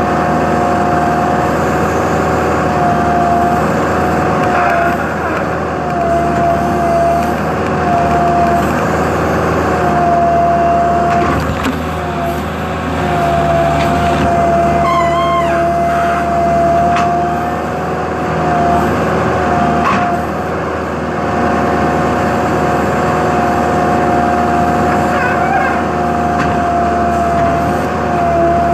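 Heavy machinery engine running steadily under work, with a strong high whine that wavers slightly in pitch. A few knocks and a brief squeal come through partway in.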